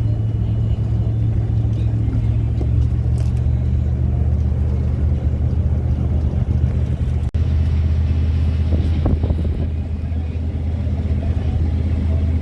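Steady low drone of a vehicle's engine and road noise, heard from inside the cab while driving, with a sudden brief drop about seven seconds in.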